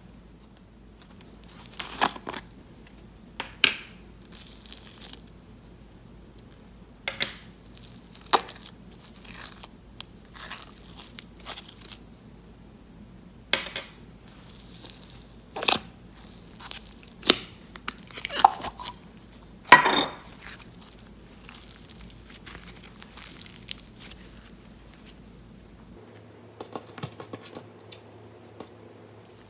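Bubble wrap and tape being pulled and torn off a slime container: scattered crinkles and short tearing rips, the loudest about two-thirds of the way through.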